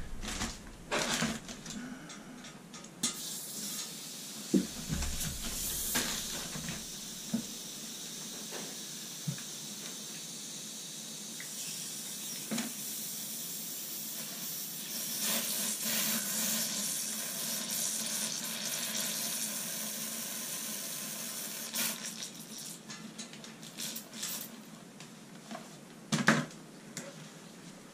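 Air hissing and water spitting out of a cast-iron radiator's bleed valve into a bucket as the radiator is bled, purging air from the refilled hot-water heating system. The hiss builds a few seconds in, is strongest in the middle, then tapers off, with a few light clicks and knocks of handling.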